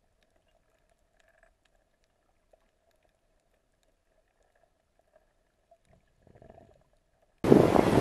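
Muffled near silence underwater with a faint steady tone and a few tiny clicks. About seven seconds in it cuts suddenly to loud wind on the microphone over open sea.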